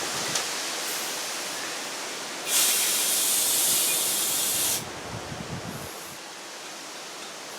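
Compressed air hissing from an air chuck on a lawn tractor tire's valve stem, with the Schrader core removed: a fainter steady hiss, then a loud hiss lasting about two seconds from a bit over two seconds in. It didn't even sound like it was putting any air in the tire; the owner thinks the chuck needs a Schrader valve pin to open.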